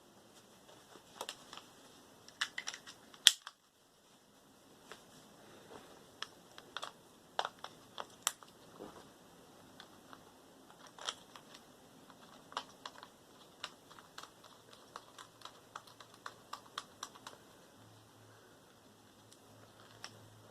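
Scattered light clicks and taps of small objects being handled, at an uneven pace, with one sharp knock about three seconds in.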